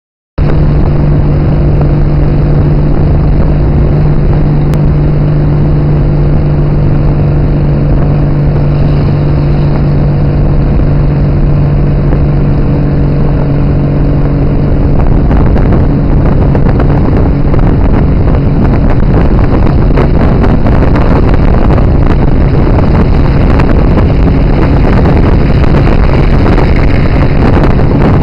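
Tuk tuk's small engine running steadily on the move, a low even hum under road noise. From about halfway the hum fades back and a louder, rougher rush of wind buffeting the microphone takes over.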